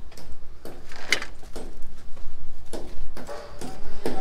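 Irregular knocks and taps of hand work on a concrete and hollow-block house under construction, a few a second at uneven spacing.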